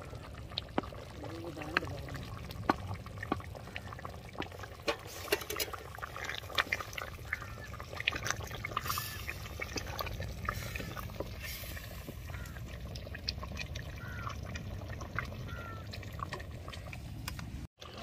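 Chicken gravy bubbling as it cooks in the pan, with many short pops and clicks scattered over a steady low rumble.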